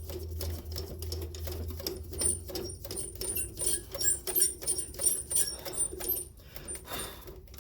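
Metal lathe being wound back by hand: an irregular run of small metallic clicks and ticks from the slide handwheel and leadscrew, with a low hum that fades out about two seconds in.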